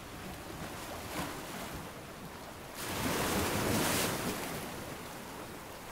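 Ocean waves washing, a steady rush of surf that swells louder about three seconds in and then eases.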